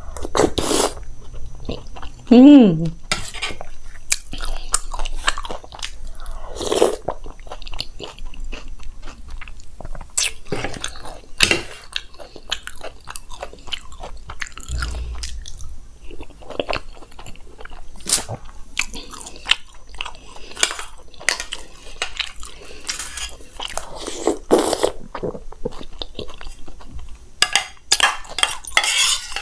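Close-miked chewing and crunching of dahi bhalla topped with crunchy sev, with short clicks of a spoon. There is a brief hum of the voice about two and a half seconds in, and a steel spoon scrapes the bowl near the end.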